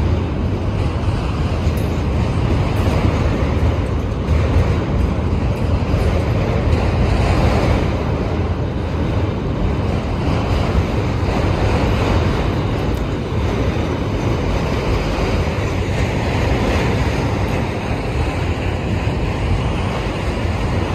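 Freight train of autorack cars rolling past close by: a steady rumble and rattle of wheels on rail, with no horn or breaks.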